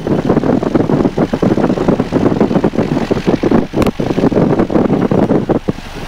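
Van's RV-7A's piston engine and propeller running at taxi power, heard inside the cockpit as a loud, choppy rumble. A sharp click comes about four seconds in.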